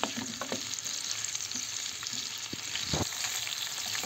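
Chopped green peppers sizzling in a frying pan, stirred with a wooden spoon that knocks against the pan a few times, most strongly about three seconds in.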